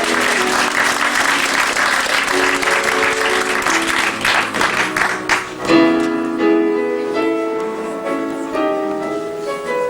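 Audience applauding while a piano begins the introduction underneath; the applause dies away a little past halfway, leaving the piano playing alone.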